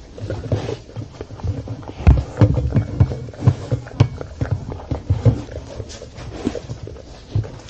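A large dog eating from a stainless steel bowl close up: irregular chewing, with the muzzle knocking against the metal bowl. The knocks come thickest from about two seconds in.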